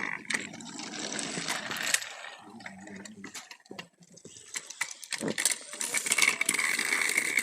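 Battery-powered toy train's small motor whirring, with clicks and clatter of toy trains and track pieces. The whirring is steadiest in the second half, after a brief quieter spell.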